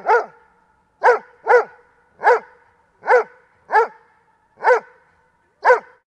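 Doberman pinscher barking: about eight single, sharp barks spaced half a second to a second apart, each followed by a short ringing echo.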